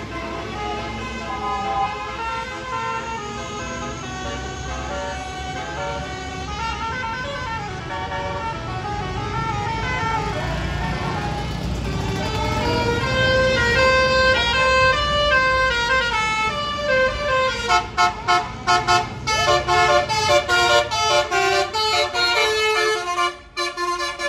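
Tour bus 'basuri' telolet horn, a multi-note musical horn, playing a stepping melody over the low rumble of passing coaches. Near the end it changes to a string of short, quick toots.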